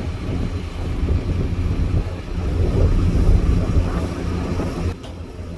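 Ferry boat's engines running with a steady low rumble, mixed with wind buffeting the microphone; the noise drops away suddenly about five seconds in.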